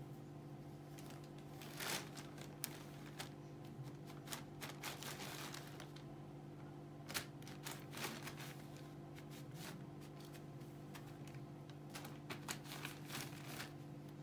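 A thin plastic shopping bag rustling and crinkling in short, irregular bursts as a kitten pushes its head and body into it, over a steady low hum.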